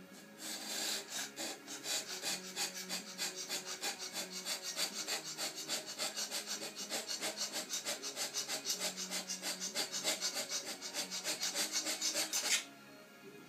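Hand scraper being pushed in quick, even strokes across the cast-iron ways of a milling-machine column, about four to five strokes a second. It stops about a second before the end.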